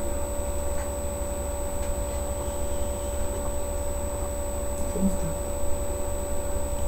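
Steady low hum with hiss and a thin high whine, unchanging throughout, with only a faint brief sound about five seconds in.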